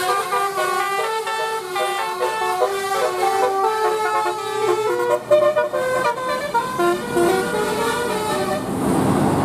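Bus telolet horn, a multi-tone musical air horn, playing a quick tune of stepped notes, one after another. Near the end the horn stops and engine and road noise rises.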